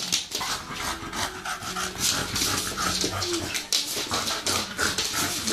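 A dog panting quickly, a fast run of rasping breaths.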